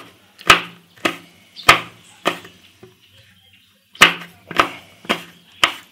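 Chef's knife chopping peppadew peppers on a wooden cutting board: sharp knocks of the blade on the board, about one every half second, four strokes, a pause of a second and a half, then four more.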